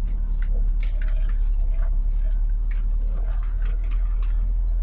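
Scania G410 truck's diesel engine droning low and steady, heard from inside the cab, with frequent short rattles and knocks as it rolls over a rough gravel road.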